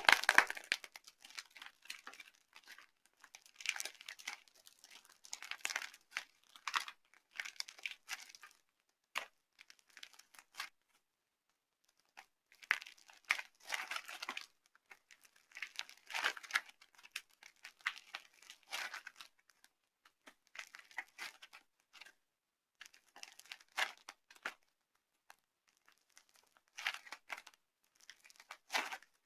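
Dry soap being crushed and crumbled by hand: irregular bursts of close-up crunching and crackling, pausing now and then between squeezes.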